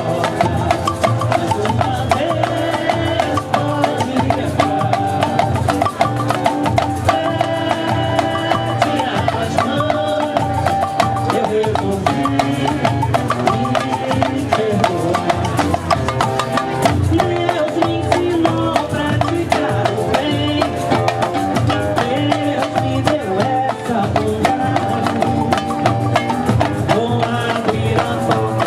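Samba music with steady, dense hand percussion under pitched instruments.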